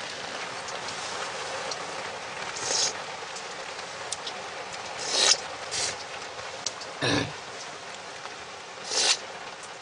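Steady rain falling on the pickup cab, heard from inside. A handful of short, sharp scraping clicks stand out over it as a ring-pull sardine tin is worked open.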